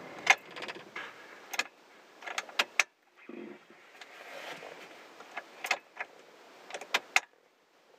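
A string of irregular sharp clicks and light knocks, keys and switches being handled in a car cabin with the engine switched off.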